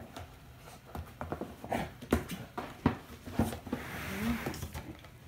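A miniature schnauzer playing with an empty cardboard box on a wooden floor: a string of irregular knocks and scuffs, with a soft rustle of fabric about four seconds in.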